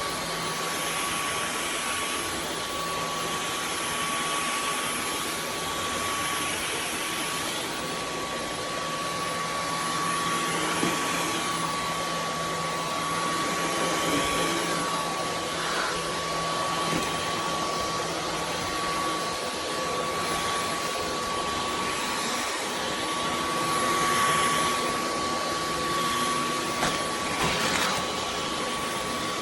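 Dyson V15 Detect cordless stick vacuum running steadily: a rush of air with a thin, steady high whine, swelling a little now and then.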